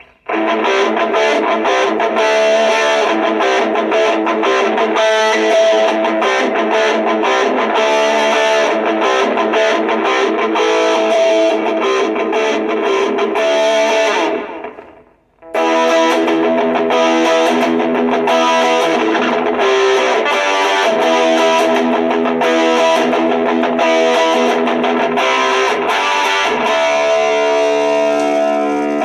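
Stratocaster electric guitar played with distortion through a Marshall MS-4 mini amplifier, a continuous run of notes and chords. The playing dies away about halfway through and starts again a second later.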